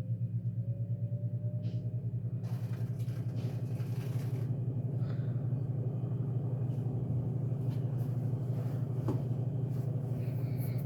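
26-inch Minka Aire Spacesaver ceiling fan spinning up from a standstill to high speed. Its motor hums steadily, with a faint whine rising in pitch over the first couple of seconds, and a rush of air builds in as the blades come up to speed.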